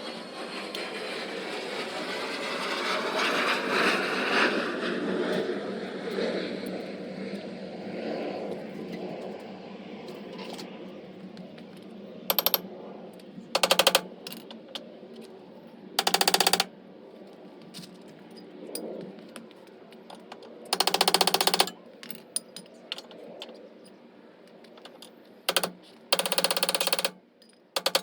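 A broad rushing noise swells and fades over the first ten seconds. Then a pneumatic air tool, such as an impact wrench, runs in about seven short rattling bursts of under a second each, working fasteners on the suspension.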